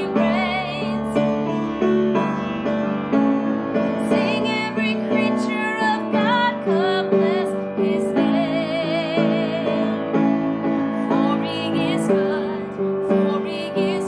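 A woman singing solo over piano accompaniment, holding notes with vibrato.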